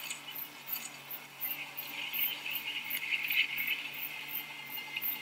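Spectators' bells jangling steadily along the ski cross course, swelling a little in the middle.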